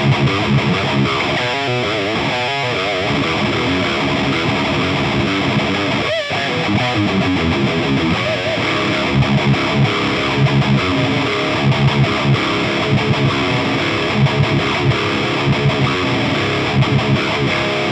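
Heavily distorted electric guitar riffing through an Orange Rockerverb 100 MKIII valve amp, boosted by a Maxon OD808 overdrive with its tone turned up to 3 o'clock, with a run of quick repeated low chugs in the second half. The bite is still there, but it is less mid-rangey.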